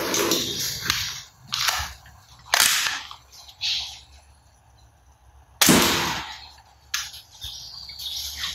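Toy gun firing: a series of sharp shot sounds at irregular intervals, about seven in all, the loudest about five and a half seconds in.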